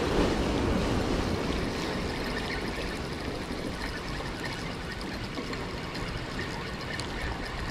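Ocean surf breaking and washing over the rocks of a jetty: a steady rush of water.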